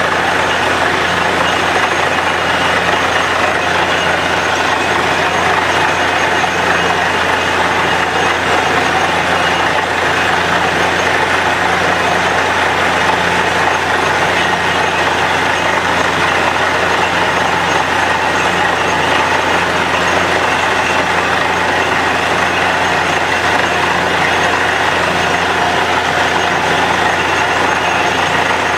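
Truck-mounted borewell drilling rig running steadily under load while it drills the bore hole, with mud slurry being flushed out. The machine noise is loud and even, with a low pulse that repeats about once a second.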